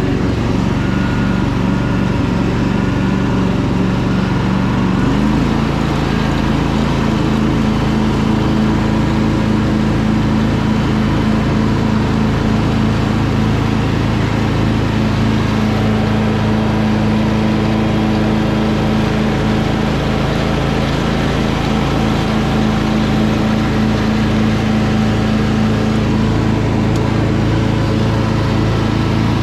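Craftsman DLT3000 lawn tractor's Honda 16.5 hp twin engine running steadily on its test run after repair, stepping up to a higher speed about five seconds in and holding there.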